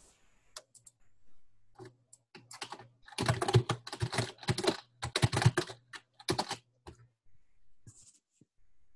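Typing on a computer keyboard: a few scattered keystrokes, then quick runs of typing from about two to seven seconds in, with a few more taps near the end. The typing is entering the account's login name and password.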